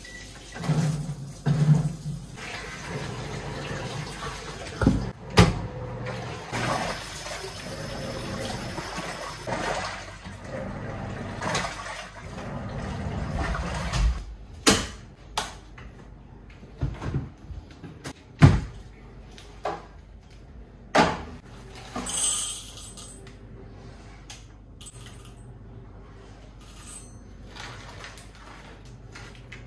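Top-loading washing machine filling with water, a steady rush that runs for about thirteen seconds with a few clunks in it. After it stops come scattered knocks and clatters of things being handled.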